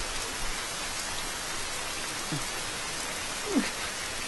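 Steady rain falling, an even hiss, with two short, faint falling vocal sounds about two and three and a half seconds in.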